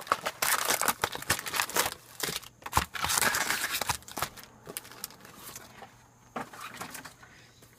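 Foil trading card packs rustling and crinkling as they are handled, with small clicks and taps, busiest in the first few seconds and fainter after.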